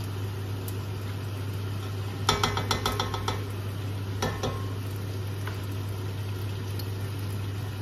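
Metal serving spoon clinking against the pan and tub as masala paste is spooned into the curry: a quick run of about ten ringing clinks about two seconds in, and one more knock about four seconds in. A steady low hum runs underneath.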